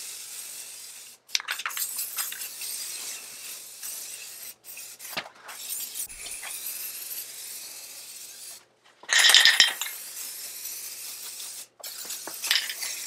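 Aerosol spray-paint cans in use: spraying hiss alternating with the clinking rattle of the mixing ball inside a shaken can, broken by several abrupt cuts.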